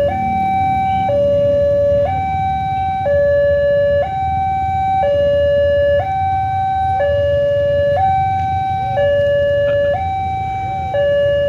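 Railway level-crossing warning alarm sounding its two-tone electronic signal: a higher tone and a lower tone alternate, each held about a second, over a low rumble.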